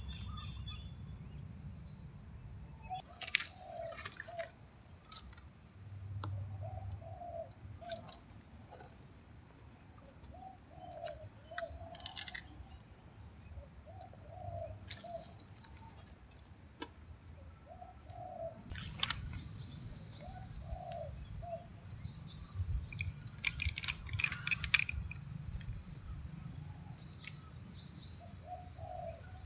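Spotted doves (tekukur) cooing, short low phrases repeating every couple of seconds, over a steady high drone of insects. A few sharp clicks and some rustling break in now and then.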